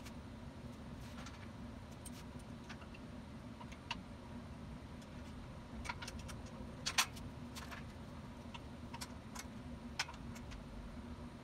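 Scattered small metallic clicks and clinks of steel hold-down clamps being handled and set on a fixture welding table, the sharpest about seven seconds in, over a steady low hum.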